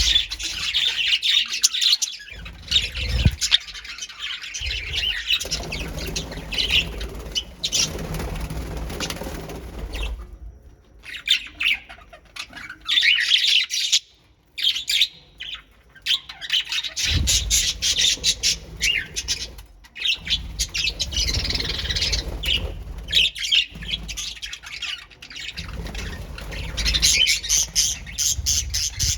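A colony of pet birds chirping and squawking in dense overlapping chatter, with a couple of brief lulls near the middle.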